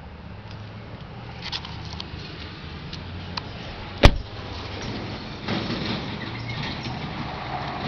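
Clicks and handling noises, with one sharp thump about four seconds in, over a low steady hum.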